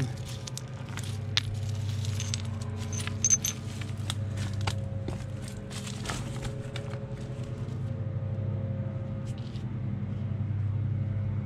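Light clinks and clicks of shell fragments and flint flakes being handled, mostly in the first half, over a steady low engine hum.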